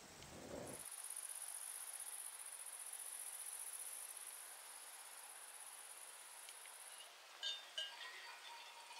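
A steady, high-pitched insect buzz that stops abruptly about seven seconds in. It is followed by a few light clinks and chime-like ringing tones.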